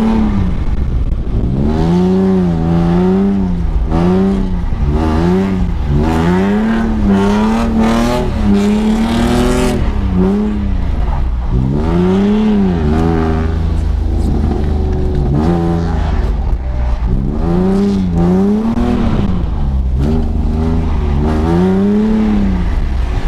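BMW E46 330Ci's 3.0-litre straight-six engine revved up and down over and over while the car is drifted, its pitch climbing and dropping every second or two.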